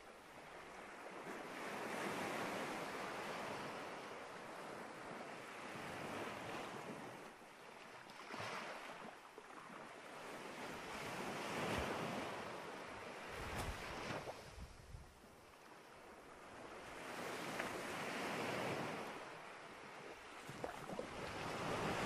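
Small ocean waves washing onto a sandy beach. The surf swells and recedes every few seconds.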